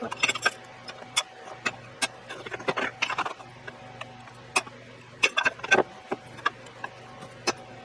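Irregular sharp clicks and clinks of small metal gearbox parts and hand tools being handled, with a faint steady hum beneath.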